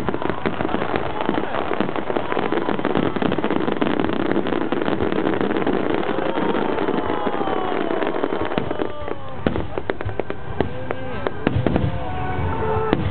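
Fireworks display at close range: a dense, continuous rattle of shell bursts and crackling, thinning out to sparser bangs about nine seconds in.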